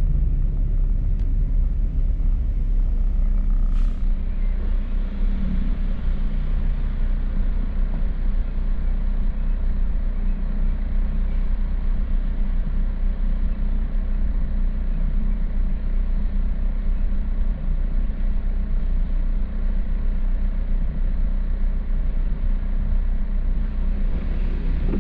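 Steady low rumble of a car driving, road and engine noise, with faint shifts in engine pitch a few seconds in.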